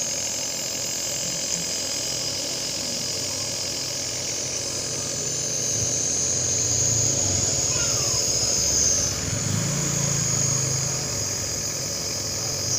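Compressor nebulizer running with a steady motor hum and hiss.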